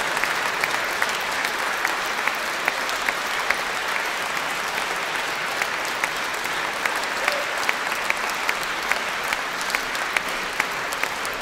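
Concert-hall audience applauding steadily, with individual claps close by standing out at an even pace, a few a second.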